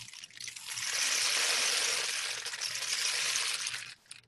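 Small beads being poured from a bag into a cardboard rain stick tube studded with toothpicks, making a steady rushing hiss as they fall through it. The hiss builds up over the first second and stops suddenly near the end.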